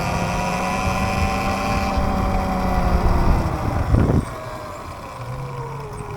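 A small bike's motor running while riding, heard as a steady whine that slowly falls in pitch, with wind rumbling on the microphone. It gets quieter about four seconds in.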